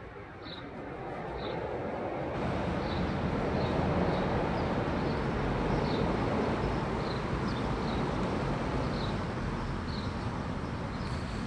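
A steady rumble of a passing vehicle that swells over the first few seconds and eases slightly near the end. A bird chirps briefly over it, roughly once a second.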